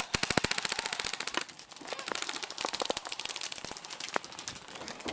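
Rapid fire from several recreational skirmish guns: a fast burst of shots over the first second and a half, then scattered single shots.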